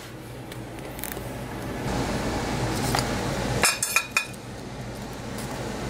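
Ceramic dishes and cutlery clinking and knocking on a granite countertop while food is plated for weighing: a few light knocks, then a quick cluster of ringing clinks about four seconds in, over a steady low hum.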